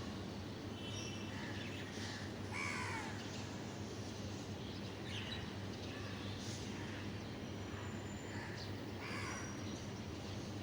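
Birds calling: two harsh caws, about 3 seconds in and near the end, and a few short high chirps, over a steady low hum.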